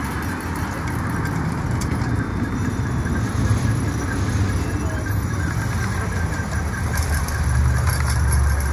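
Dense city-traffic rumble from a street soundscape recording, layered with free-improvised playing by the ensemble; a steadier low drone swells near the end.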